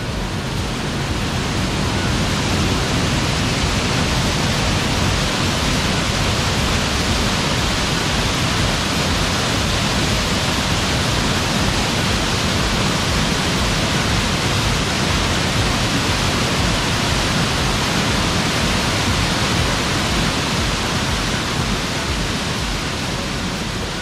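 Waterfall in full flow pouring over rocks close by: a loud, steady rush of water.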